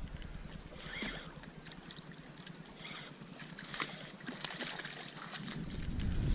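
Faint water trickling and splashing, with a few soft swells and scattered light clicks after about four seconds.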